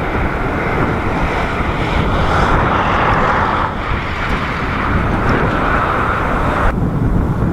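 Jet airliner's engines running on a landing approach, with strong wind rumbling on the microphone. The higher engine sound cuts off suddenly near the end, leaving the wind rumble.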